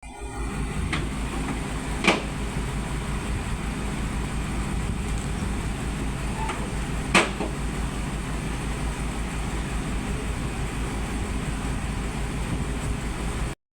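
Heavy diesel engine of earthmoving equipment running steadily with a low, even pulse. Two sharp knocks about five seconds apart break through it.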